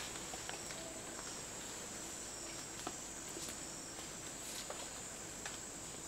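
Night forest ambience: a steady high-pitched insect trill, with a few faint scattered clicks.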